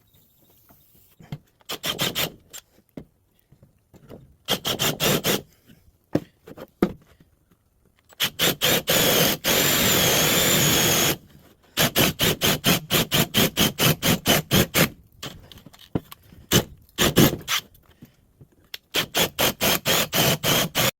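Drill with a 1-inch bit boring eye holes into a 2x6 board: a string of short, rapid pulses in several groups, with one steady run of about three seconds near the middle.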